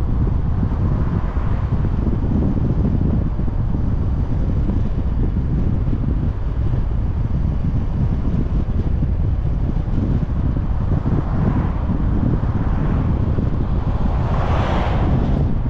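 Wind buffeting the microphone of a car-mounted action camera while driving: a steady, heavy low rumble of wind and road noise, with a brief rising and falling swell near the end.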